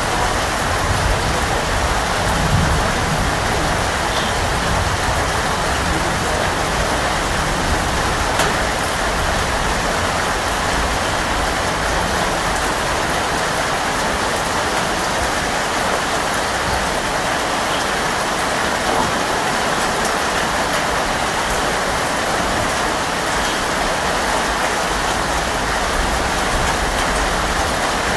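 Steady rain falling, a dense even hiss of drops, with a low rumble underneath in the first several seconds that fades away.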